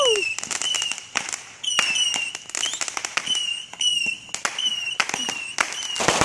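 Fireworks going off in rapid succession, many sharp bangs and crackles, with a high, wavering whistle repeating over them.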